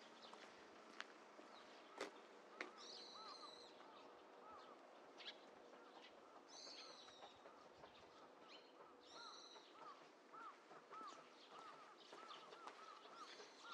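Faint bird calls: a run of short, quickly repeated chirps, with three higher, harsher calls about three seconds apart.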